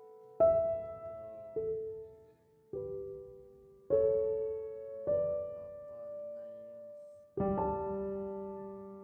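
Background music: slow solo piano, notes and chords struck about every second or two and left to ring and fade.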